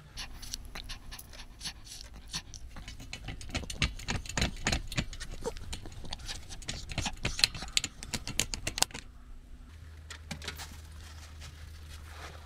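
A dog panting, with a quick run of clicking and jingling for about nine seconds, loudest in the middle, then a steady low hum.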